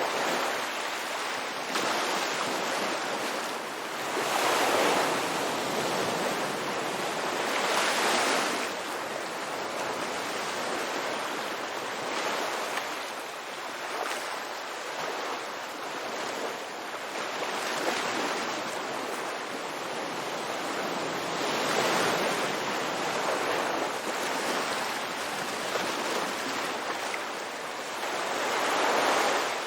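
Ocean waves breaking on a beach, a continuous wash of surf that swells and recedes every few seconds.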